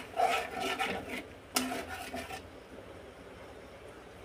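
A metal spoon scraping and stirring through thick curry against the bottom of a metal karahi, several rough strokes in the first two and a half seconds, then the stirring stops. The masala and potatoes are being stir-fried down (koshano) with a little added water.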